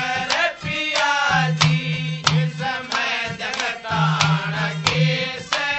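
Haryanvi ragni folk music: a sung and played melody over regular drum strokes and a low held note that comes and goes.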